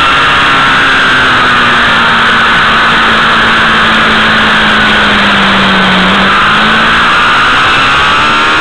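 Motorcycle engine running on the move under heavy wind noise on the onboard microphone. The engine note sinks slowly over the first six seconds and then climbs again.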